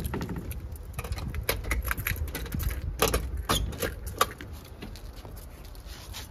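Irregular light clicks and small rattles, with a few sharper clicks about three to four seconds in, from a glass door being handled and opened while dogs move about on the tiled floor behind it.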